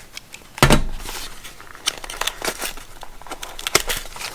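Packaging being opened by hand: a sudden knock a little over half a second in, then crinkling and rustling of the wrapping as it is torn open.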